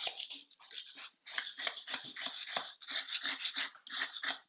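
Hand scraper scraping the bare concrete floor in quick, repeated strokes, with a short pause about a second in.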